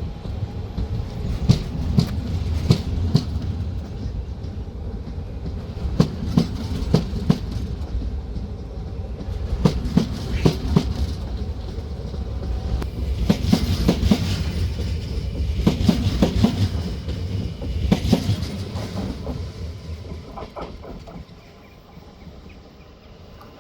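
NS DDZ double-deck electric train running by, a steady rumble with its wheels clacking over rail joints in clusters every few seconds. The rumble dies away in the last few seconds.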